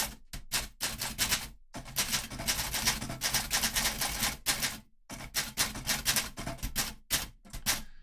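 Olympia SM9 manual portable typewriter being typed on briskly: rapid runs of sharp key strikes, the typebars hitting the platen, broken by short pauses about two and five seconds in.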